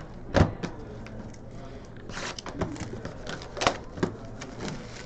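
Trading-card packs and cards being handled: a short burst of rustling a couple of seconds in, with several sharp taps and clicks.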